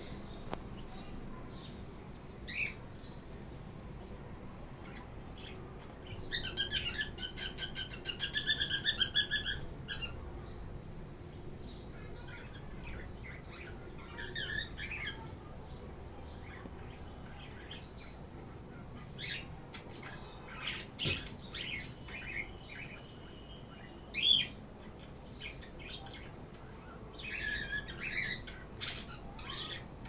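Cockatiel chirping and chattering: a brief call, then a run of rapid warbling notes that goes on for several seconds, then scattered short chirps. A single sharp call late on is the loudest sound, and another burst of chatter comes near the end.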